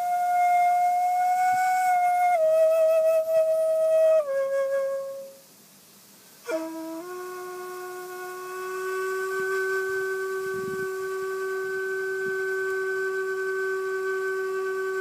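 Bamboo shakuhachi with equally spaced finger holes, played slowly: a held note steps down twice and fades out, then after a pause of about a second a low note enters with a sharp attack, bends up slightly and is held steadily to the end.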